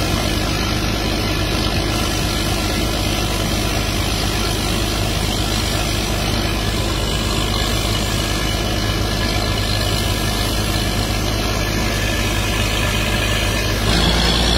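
The engine of a truck-mounted water well drilling rig running steadily at idle, then speeding up near the end, louder and a little higher in pitch.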